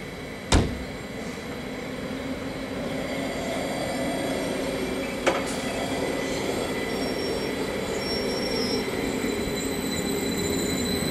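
Stadler FLIRT electric multiple unit pulling away from a station platform, its running noise building as it starts to move, with a rising hum near the end as it accelerates. A sharp bang about half a second in and a smaller one about five seconds in.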